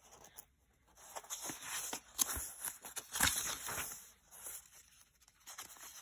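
Pages of a paper book being flipped and handled by hand: soft rustles and scrapes of paper, with a sharper flick about three seconds in.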